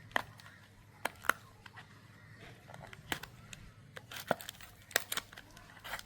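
Chocolate bar wrapper being torn open by hand: scattered sharp crackles and tears of the packaging, coming more often towards the end.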